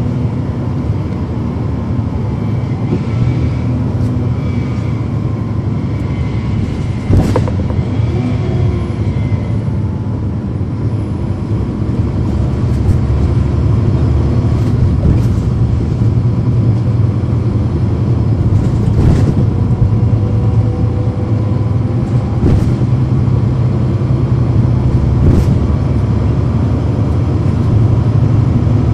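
A Cummins ISL9 inline-six diesel in a NABI 40-foot transit bus, heard from inside the bus: the engine runs with a steady low rumble and gets louder from about twelve seconds in as it works harder. A few sharp knocks or rattles stand out over it.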